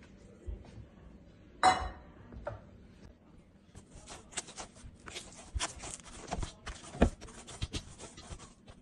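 Hands working a ball of oiled dough in a steel bowl. There is a ringing clink of the metal bowl a little under two seconds in, then a quick run of slaps and knocks from dough and hands against the bowl, the loudest near the seventh second.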